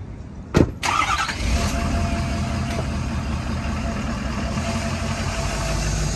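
A truck door slams shut about half a second in, then the lifted Ford F-450 pickup's engine cranks, catches and settles into a steady low idle.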